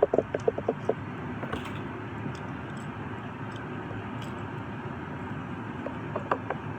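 A quick run of light clicks and taps in the first second and a few more near the end, from handling a small die-cast toy car and its wheels, over a steady background hiss.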